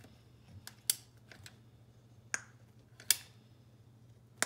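Caulk gun trigger clicking as a bead of caulk is run along the joint: four sharp clicks, a second or so apart, with the last one loudest.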